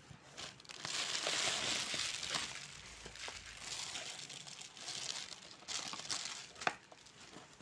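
Plastic air-bubble packing wrap crinkling and crackling as it is handled and pulled out of a cardboard box. It is loudest and densest in the first few seconds, then goes on more unevenly with a few sharp crackles near the end.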